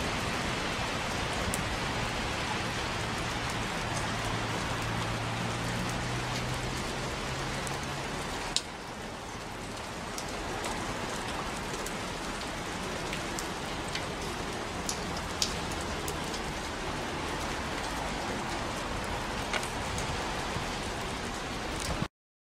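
Steady rain falling on a station platform and track, with scattered sharp drip taps. A faint low hum sits underneath and stops about eight seconds in.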